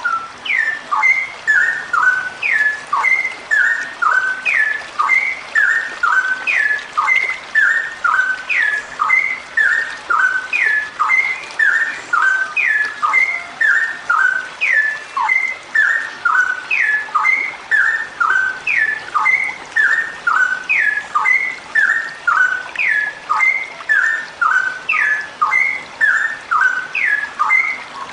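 Female straw-headed bulbul (cucak rowo) singing a long, unbroken run of quick, short sliding notes, the same phrase repeated about twice a second without a pause.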